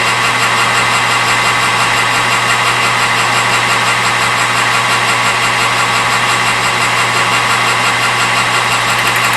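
Metal lathe running steadily with a constant motor hum and gear whine that does not change.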